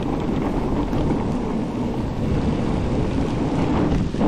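Wind buffeting the camera microphone over a steady rumble from a fat bike's tyres on packed snow during a fast downhill run.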